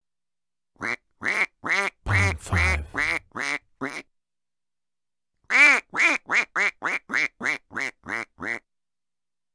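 Duck quacking in two runs of short, rasping quacks: about eight, then after a pause of over a second about ten quicker ones.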